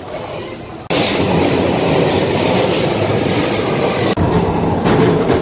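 A London Underground 1992-stock tube train running along the platform. It starts suddenly about a second in as a loud, steady rumble and clatter of wheels on rail.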